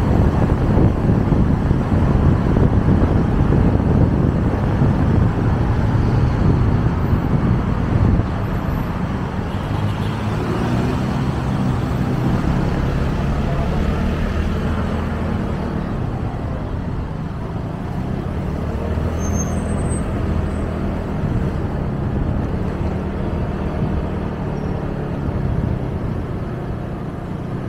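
Riding on a motorcycle taxi: wind and road rush at speed, which drops suddenly about eight seconds in, after which the motorcycle's steady low engine hum comes through at slower riding, with traffic around.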